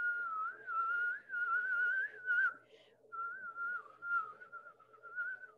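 Someone whistling a long, wavering tone that slides up and down. It stops briefly about two and a half seconds in, then goes on with a quicker, fluttering warble near the end.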